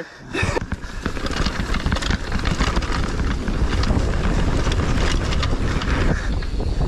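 Wind buffeting a helmet camera's microphone over the rattle and rumble of a hardtail mountain bike rolling fast down a rough trail. It builds over the first second or two as the bike picks up speed off the brakes, then holds steady.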